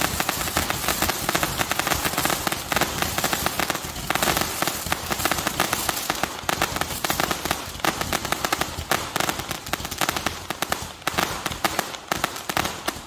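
300-shot Gatling gun roman candle barrage firing in rapid succession, dense with crackling pearls; the shots and crackles grow sparser near the end as the barrage runs down.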